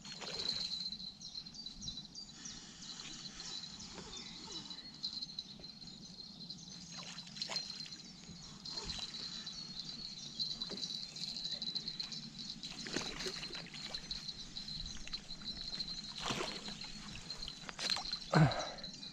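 Water sloshing and splashing as a hooked fish is played at the bank and drawn into a landing net, with a few louder splashes after the middle and near the end. A steady high-pitched chirring runs underneath.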